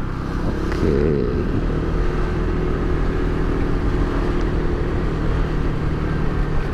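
Motor scooter engine running at low road speed, with wind rushing over the microphone. The engine note wavers briefly about a second in, then holds steady.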